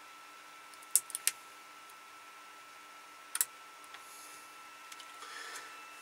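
Small sharp clicks of metal tweezers and plastic parts as a tight-fitting piece is worked loose inside a Sony Bloggie camcorder. There are three quick clicks about a second in, two more about three and a half seconds in, then faint handling noise as the part comes away.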